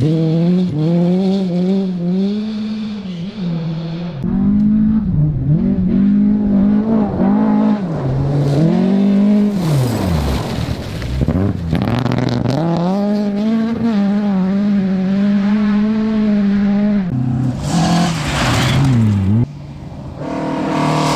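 Volvo rally cars racing along a gravel stage. Their engines rev hard, the pitch climbing and then falling back several times over the stretch, with a brief rushing noise near the end.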